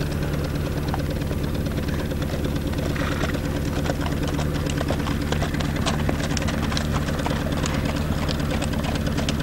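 A vintage car engine running steadily at an even speed, without revving, with frequent light clicks and rattles over it.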